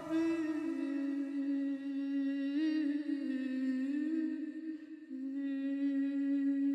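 Wordless humming of a slow melody in long held notes, the pitch stepping down and back up a few times. It is soundtrack music over a title card.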